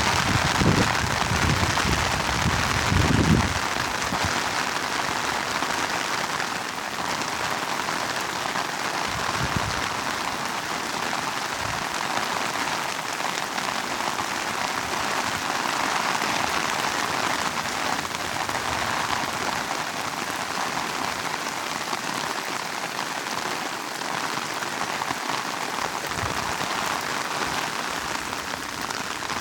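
Heavy rain falling steadily, a dense even hiss, with a few low thumps in the first few seconds.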